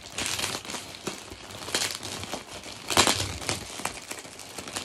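Plastic packaging bag crinkling and rustling in irregular bursts as it is handled, with the loudest crinkle about three seconds in.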